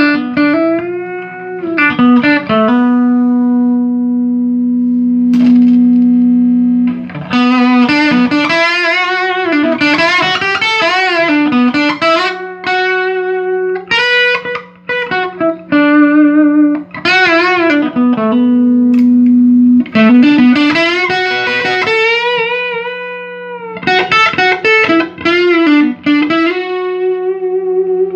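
Electric guitar played through a 1975 Fender Twin Reverb master-volume amp, being tested after repair: single-note lead lines with string bends and vibrato, broken by long sustained notes.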